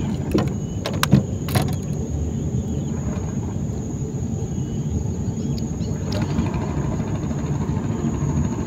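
Steady low rumble, like a motor running, with a few sharp clicks and knocks in the first couple of seconds and a thin high steady tone throughout.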